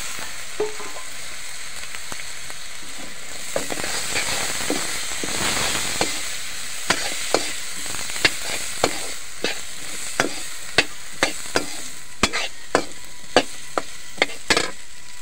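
Green beans and peas sizzling in hot oil in a steel kadhai. From about halfway through, a metal slotted spoon stirring them knocks and scrapes against the pan about twice a second.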